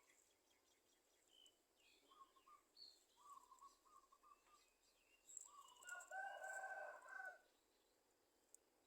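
Faint bird calls: short repeated notes and a few higher chirps, then a louder drawn-out call about six seconds in that lasts about a second and a half.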